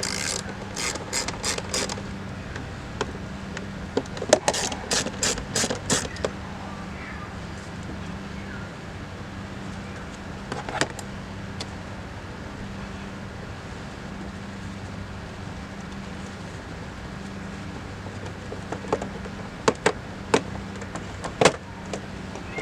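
Runs of sharp mechanical clicks, half a dozen or so at a time a fraction of a second apart, with a single click in between, over a steady low hum.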